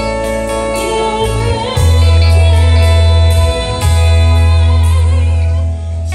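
Live worship band playing: singing over electric bass, drum kit with cymbal hits, and electric guitar. Two long, loud low bass notes are held through the middle.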